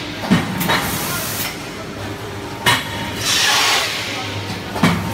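TQC-750 corn starch food box machine cycling: sharp metallic knocks every couple of seconds, with a hiss of air lasting about a second between them, over a steady machine hum.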